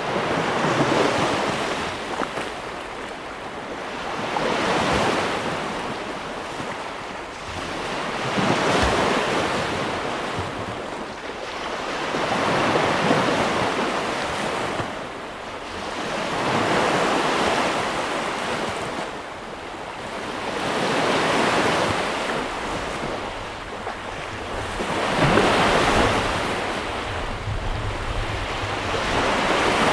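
Ocean waves breaking on a beach, the surf swelling and fading in a slow, even rhythm about every four seconds, with a light hiss of wind.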